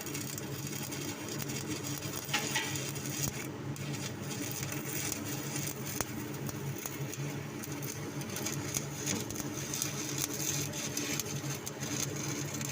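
Stick (shielded metal arc) welding arc crackling and sizzling steadily as a bead is run.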